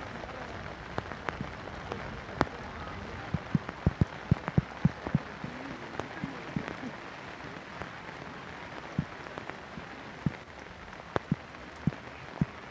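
Footballs being kicked during a training drill: a string of sharp, irregular thuds, thickest a few seconds in, over a steady hiss of rain.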